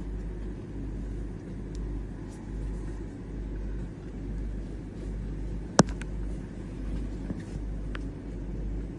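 Steady low rumble and hum, with one sharp click a little after halfway through and a fainter click near the end.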